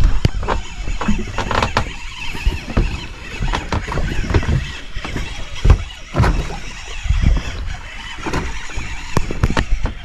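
Handling noise of a fish being reeled in on a spinning rod and reel: irregular clicks and knocks over an uneven low rumble.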